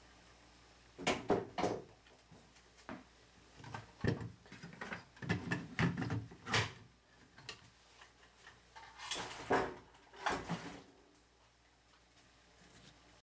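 Power tools being handled on a wooden shelf: a string of irregular knocks, clicks and rattles as a cordless circular saw is picked up and moved.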